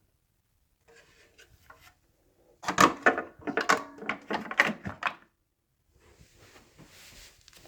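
Hard parts of an upright vacuum being handled: a few faint clicks, then a quick run of loud clacks and knocks for about two and a half seconds, with the motor off.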